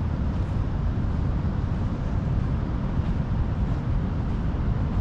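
Wind buffeting the microphone: a steady low rumble that flickers quickly in level.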